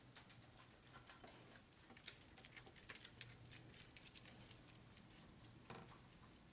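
Faint, light clicks and taps of small metal parts being handled at an opened motorcycle transmission case, bunched most thickly about three to four seconds in.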